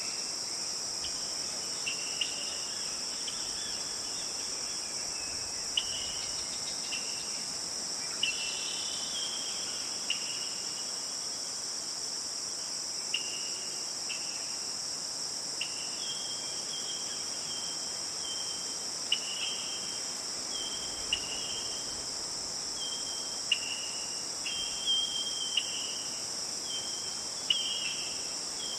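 Steady, high-pitched chorus of crickets or other insects, with short chirping calls repeating every second or so over it, more often in the second half.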